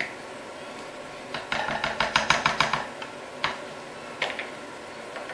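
A utensil clinking and scraping rapidly against a cooking pot for about a second and a half, then two single knocks.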